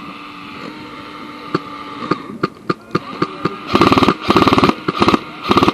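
Airsoft guns firing: scattered single shots, then four rapid full-auto bursts of about half a second each in the last two seconds. A steady hum runs underneath.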